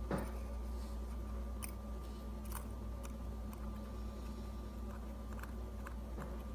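A few light, scattered clicks of metal watchmaker's tools handling small parts of a pocket watch movement, over a steady low hum.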